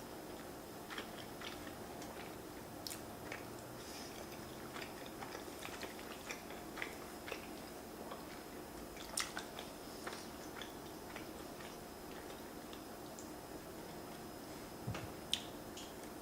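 Close-miked eating: soft chewing of creamy Alfredo pasta with small wet mouth clicks scattered throughout, and a couple of sharper clicks about 9 and 15 seconds in.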